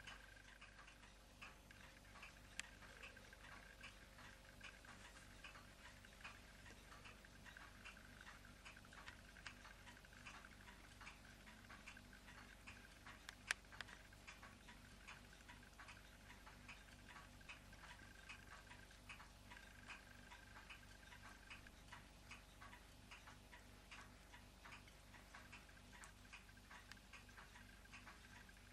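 Near silence: room tone with faint, regular ticking at about three ticks a second, and one sharper click about halfway through.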